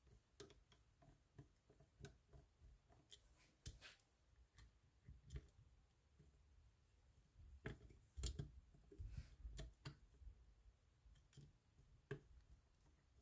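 Faint, irregular small clicks and light metal taps from a Penn Senator II conventional reel and its small frame screws being handled while the screws are set into the frame. A few sharper clicks come about four seconds in and again around eight seconds.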